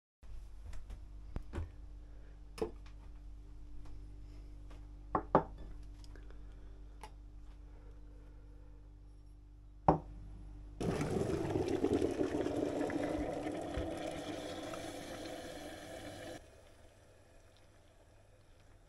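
Hot water poured from an electric kettle into mugs for about five seconds, after a few sharp clicks and knocks over a faint low steady hum.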